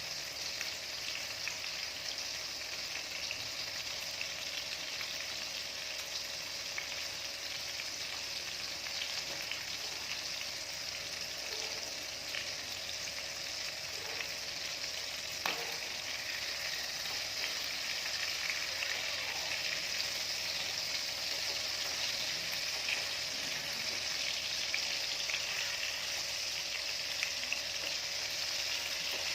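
Seasoned chicken pieces frying in olive oil in a pan: a steady sizzle that grows a little louder in the second half, with one sharp click about halfway through.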